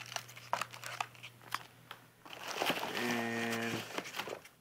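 Plastic wrapping and packing material crinkling and rustling as it is handled in a cardboard box: scattered rustles at first, then a denser stretch of crinkling with a brief squeak about three seconds in.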